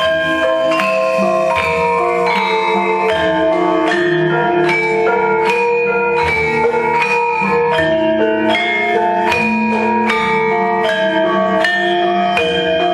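Javanese gamelan playing a battle-scene accompaniment for wayang kulit: bronze metallophones struck in quick, ringing notes, with sharp accents about twice a second.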